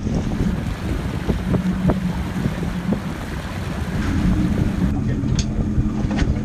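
Wind buffeting the microphone and water slapping against a small boat's hull at sea, over a low steady hum, with a few light knocks.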